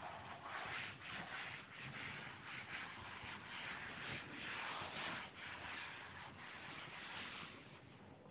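Duster wiping chalk off a chalkboard: a faint rubbing swish in repeated back-and-forth strokes, dying away near the end.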